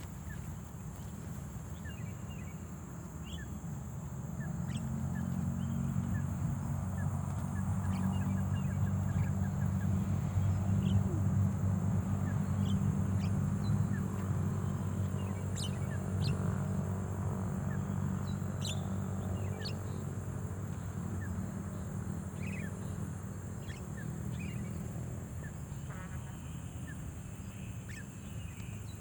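Short bird chirps scattered throughout, over a low engine-like hum that builds over the first few seconds, is loudest around the middle and slowly fades toward the end.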